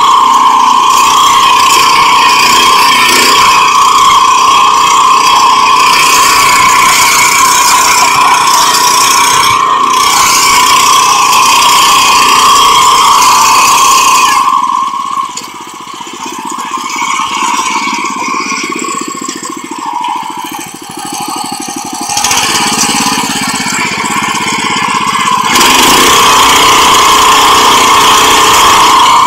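A 7 hp power weeder's engine runs loud and steady. About halfway through it drops to a lower, quieter running speed for roughly ten seconds, then comes back up to full speed near the end.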